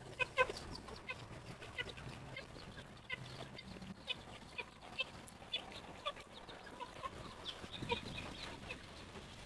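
A chicken clucking softly, short calls repeated about twice a second.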